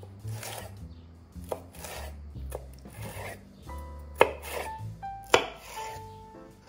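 Santoku knife slicing a red bell pepper into strips on a wooden cutting board: a series of cutting strokes, each ending in a knock of the blade on the board, the two sharpest a little past halfway and about a second later.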